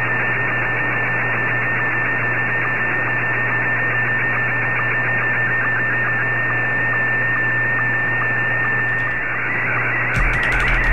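Slow-scan television (Scottie 1) picture transmission on the 20-metre amateur band at 14.230 MHz, heard through a software-defined radio's sideband audio over steady band hiss. A tone near 2 kHz with faint regular ticks holds steady for most of the time, then breaks into a busier, shifting warble near the end as the picture content changes.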